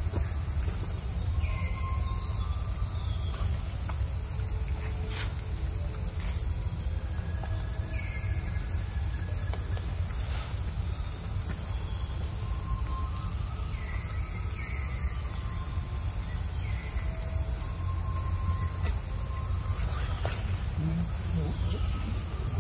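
Steady, high-pitched drone of insects, with a steady low rumble underneath. A few short falling chirps come and go through it.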